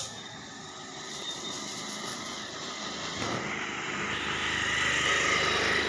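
A motor vehicle engine running, growing louder through the second half as if approaching.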